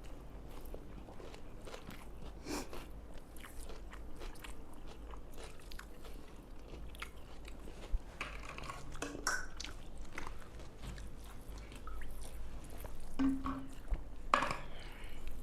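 Chewing and biting with scattered small crunches and clicks: people eating rice and spicy pepper chicken.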